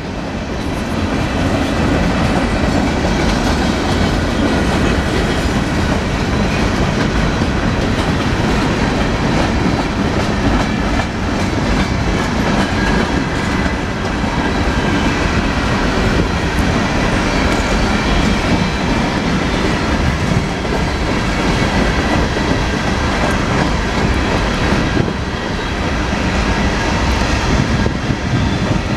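Freight cars of a manifest train rolling past on steel rails: a steady, loud rumble of wheels on track with repeated clicks as the wheels cross rail joints.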